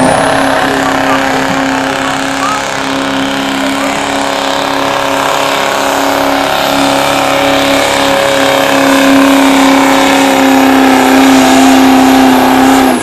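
Modified diesel pickup truck pulling a sled under full throttle: the engine runs loud and steady at high revs with a high, steady whistle over it.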